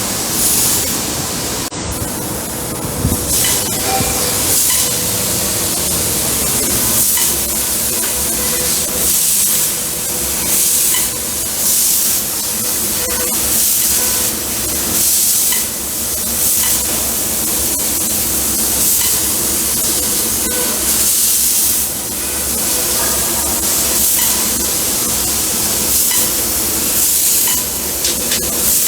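Fibre laser cutting machine cutting sheet metal: the assist-gas jet hisses loudly, swelling and easing every second or two as the head pierces and cuts, over a steady machine hum.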